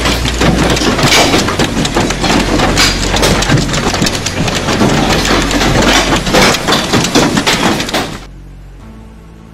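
Hailstones pelting the street and parked cars: a loud, dense clatter of countless small impacts. It cuts off abruptly about eight seconds in, and quiet background music follows.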